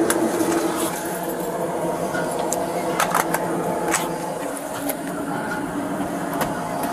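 Steady machine hum of a stopped locomotive's running equipment, heard from inside the cab. Several sharp clicks and knocks of handling close to the microphone come through it.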